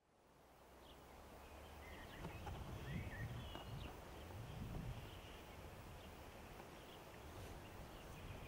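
Faint outdoor ambience fading in: a few short bird chirps over a soft hiss and a low rumble that swells and fades.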